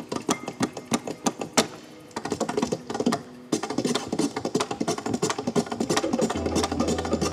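Tap shoes striking a portable tap board in a solo tap routine: separate taps a few a second at first, then fast, dense rapid-fire tapping from about two seconds in. A low steady tone joins near the end.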